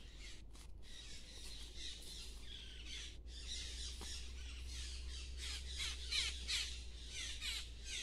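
Wild birds calling in a dense run of harsh squawks, each falling in pitch, loudest about six seconds in.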